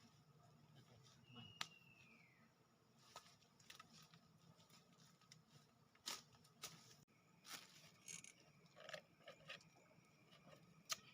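Near silence, broken by scattered faint clicks and taps and one short falling whistle about a second and a half in; a faint steady high tone sets in about halfway through.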